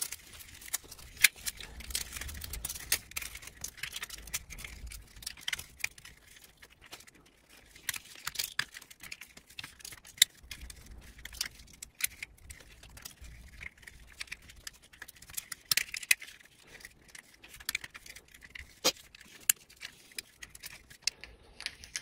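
Seat belt retractor's flat steel return spring being coiled back into its plastic housing by hand: scattered small metallic clicks and light rattles, irregular throughout.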